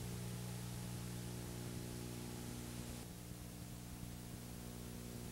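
Faint steady low electrical hum under tape hiss from a VHS playback, with no programme sound. About three seconds in the hiss and some of the hum's upper tones drop a little.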